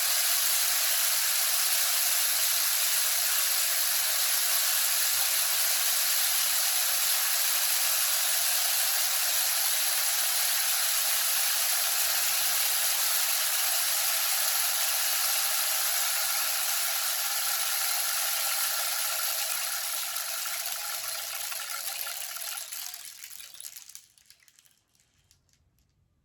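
Rainstick pouring, a steady dense rattling hiss of pebbles trickling through the tube, which thins out and stops about three-quarters of the way through.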